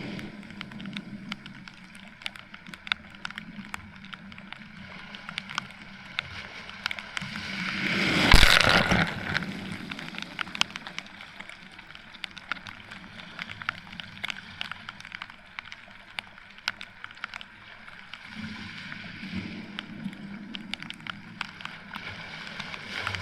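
Rain falling on a beach, with many sharp drop hits close by over a steady hiss of rain and surf. A wave surges in about eight seconds in, the loudest moment, and washes out. A lower wave rumble comes again near the end.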